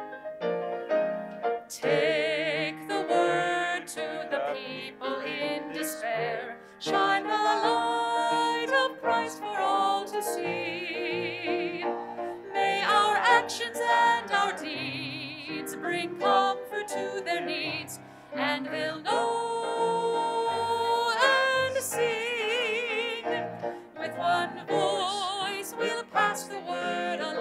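Hymn sung by a cantor with a strong vibrato, accompanied by a grand piano.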